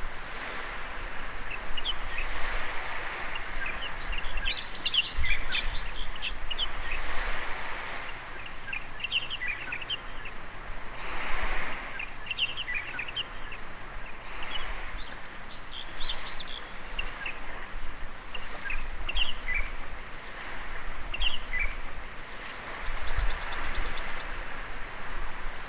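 Gentle waves washing onto a beach, the surf swelling and easing every few seconds, with many birds chirping and calling throughout.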